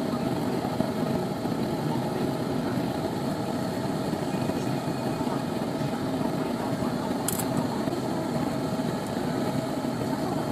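Tabletop lampworking burner flame running with a steady rushing hiss while a glass bead is worked in it. A faint click about seven seconds in.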